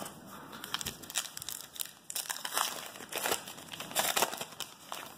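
Wrapper of a 2017 Topps Allen & Ginter trading-card pack crinkling in a run of irregular crackles as the pack is pulled from the box and worked open by hand.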